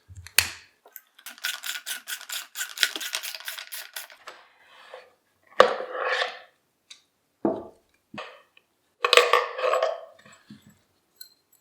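Ratcheting socket wrench with an Allen bit on an extension backing out a shotgun's stock bolt: a quick run of even ratchet clicks, about seven a second, for a few seconds, then several separate metallic clatters as the tool and parts are handled.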